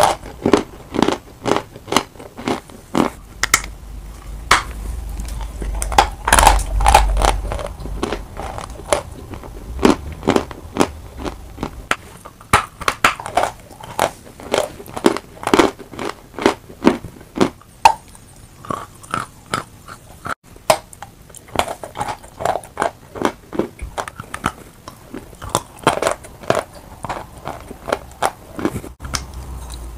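Close-miked biting and chewing of a white chalk bar: a dense run of sharp, crisp crunches, several a second, as pieces snap off and are ground between the teeth.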